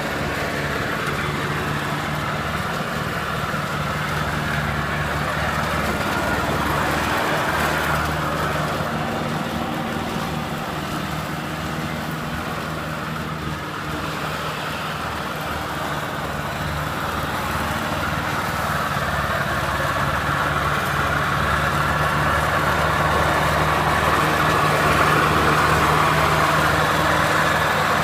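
Riding lawnmower engine running steadily as it mows, a little fainter in the middle and growing louder toward the end as the mower comes closer.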